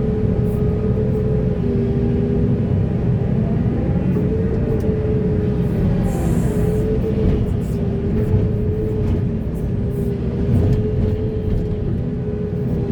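Heavy diesel earthmoving machinery running steadily under load: a deep engine rumble with a steady whine held over it.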